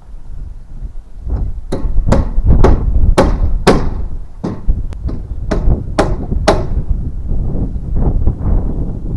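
Hammer driving nails into a wooden rafter: a run of about ten sharp blows, roughly two a second, then a few softer taps near the end. Wind rumbles on the microphone underneath.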